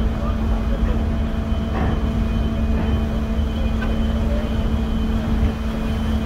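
A large car ferry's engines running under way as the ship pulls away from the quay, heard as a steady drone with a constant low hum over a deep rumble.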